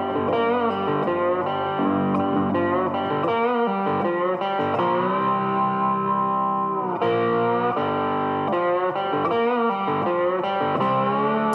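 Background music led by guitar: plucked electric guitar notes with a long held chord about halfway through.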